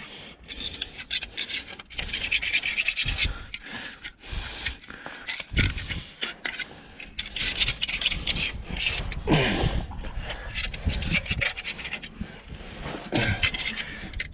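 A screwdriver blade scraping dirt and old gasket residue off the sump mating flange of a Vladimirec T-25 tractor engine. It goes in runs of quick rasping strokes with short pauses between them.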